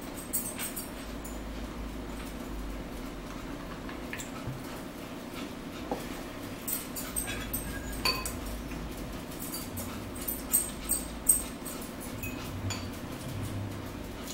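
Eating at a table: forks clinking and scraping against plates and a bowl, with close-up sipping and chewing, heard as sharp scattered clicks that grow loudest in a cluster about ten to eleven seconds in, over a steady low hum.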